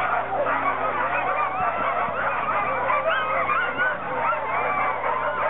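A crowd of sled dogs yelping and howling together: a dense, steady din of many overlapping high calls, the excited clamour typical of sled dogs staked out waiting to run.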